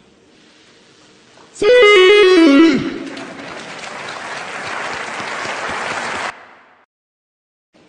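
A loud pitched comedy sound effect, stepping down in pitch for about a second, dubbed in place of Cristiano Ronaldo's "Siu" shout. Stadium crowd cheering and applauding follows, then fades out.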